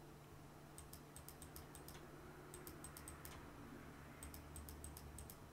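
Faint, irregular clicking in about three short clusters, from computer input clicks while dashed lines are drawn on screen, over a low steady hum.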